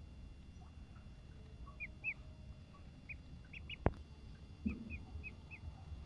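Duckling peeping: about nine short, high peeps, some single and some in quick runs, over a low steady background. A single sharp click about four seconds in is the loudest sound.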